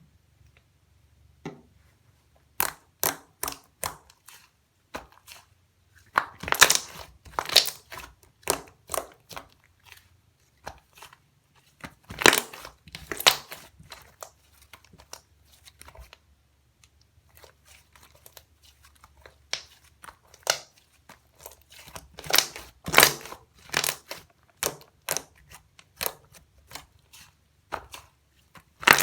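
Thick chocolate cream slime with a mud-pack texture being pressed, stretched and folded by hand, giving irregular sticky clicks, pops and crackles. There are short quiet pauses near the start and about halfway through.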